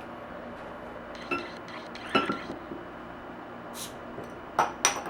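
A steel bottle opener clinking against a glass beer bottle's neck twice, then a short hiss as the crown cap comes off, followed by two sharp metallic clicks near the end, the second leaving a brief high ring.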